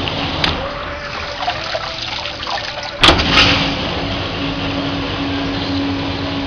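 Commercial dishwasher running, a steady machine hum with water noise, and two sharp clunks close together about three seconds in.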